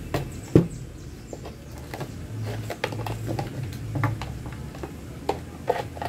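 Plastic rear cover and housing of a wall-fan motor being handled and test-fitted together: scattered small clicks and scrapes, with one sharper knock about half a second in.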